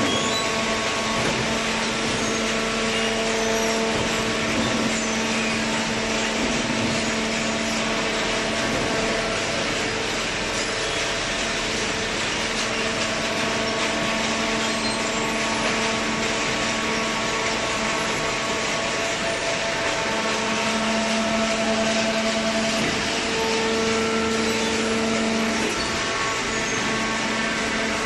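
Cardboard baling machinery running steadily: a continuous machine hum with a few steady tones over a noisy rush, from the baler's motor-driven hydraulic unit and conveyor. The hum grows a little stronger about three quarters of the way in.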